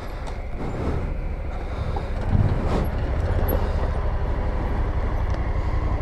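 2017 Yamaha Grizzly 700 ATV's single-cylinder engine running steadily, with one heavier thump a little over two seconds in.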